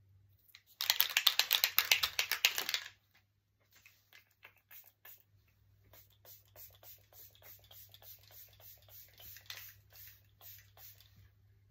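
e.l.f. makeup setting spray misting onto the face: a loud hiss lasting about two seconds that flutters rapidly, as a fine mist rather than drips. After it come faint light ticks, a few a second, until near the end.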